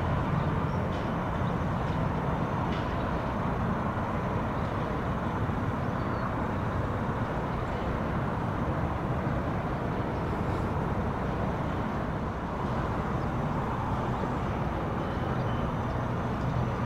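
Steady outdoor background noise with a low rumble and no distinct event.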